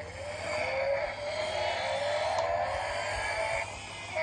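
Toy transport truck's electronic engine sound effect playing from its small speaker: a whine that climbs steadily in pitch for about three and a half seconds, then cuts off.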